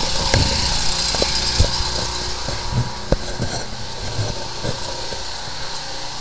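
An engine running steadily at idle, slowly getting quieter, with a few short knocks over it.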